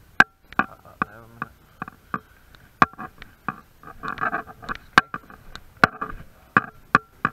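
Irregular sharp clicks and knocks, one or two a second, of footsteps and movement over a debris-strewn concrete floor, with a short wavering squeak about a second in.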